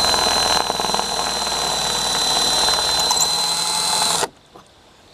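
DeWalt 18-volt cordless drill running with its bit grinding into a rivet head on a taillight's metal flange to drill the rivet out. A steady high whine over grinding noise, which stops about four seconds in.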